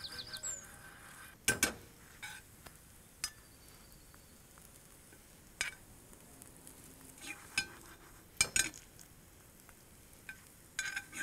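Patties shallow-frying in ghee in a frying pan with a faint sizzle, while a metal spoon clicks and scrapes against the pan about half a dozen times as the patties are moved.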